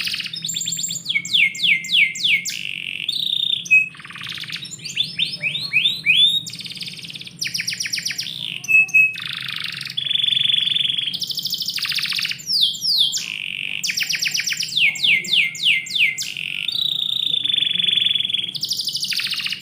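Domestic canary singing a long, unbroken song: fast trills, runs of rapidly repeated falling sweeps and held buzzy notes, one phrase changing into the next.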